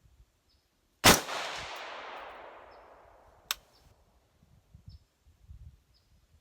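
A single rifle shot from a Mk12 Mod 1 clone in 5.56 NATO: a sharp crack about a second in, with its echo dying away over the next two seconds or so. A short sharp click comes about two and a half seconds after the shot.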